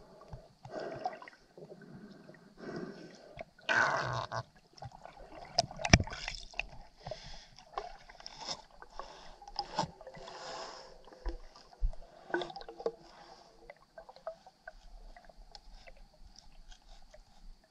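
Underwater sound picked up through a GoPro's waterproof housing: irregular swishes and gurgles of moving water with scattered clicks and knocks, the loudest rush about four seconds in and a sharp click about two seconds later.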